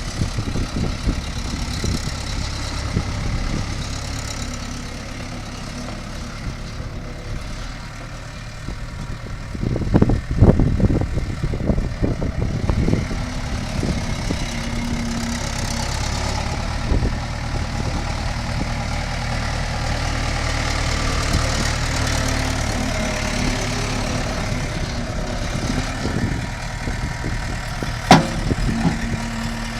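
Case 1845C skid steer's four-cylinder diesel engine running steadily, with a louder, rougher stretch about a third of the way through and a single sharp clank near the end.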